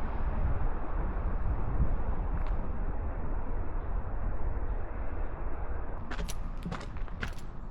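A steady low rumble of outdoor noise. About six seconds in, sharp crunching footsteps start on the trail.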